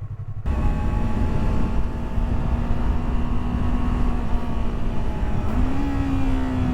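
Yamaha R3's parallel-twin engine running under way, with wind and road noise that comes in suddenly about half a second in. The engine note steps up about five and a half seconds in, then slowly sinks.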